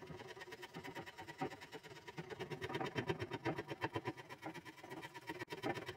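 Spokeshave shaving dry cherry hardwood: quick, repeated scraping strokes as the end of a walking stick is tapered down to fit a rubber foot.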